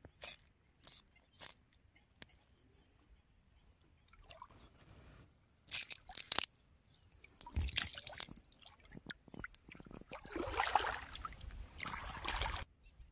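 Shallow water splashing and sloshing as a large fish is worked free of a fine fishing net by hand, with a few sharp clicks in the first couple of seconds and the loudest splashing about ten seconds in, cutting off abruptly near the end.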